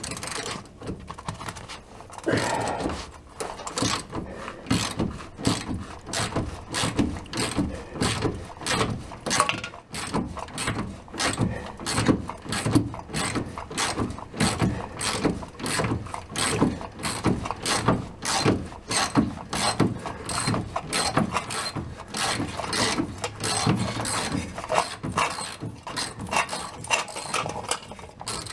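Socket ratchet wrench clicking in quick repeated runs as it is swung back and forth on a rusted bolt, working it loose by hand.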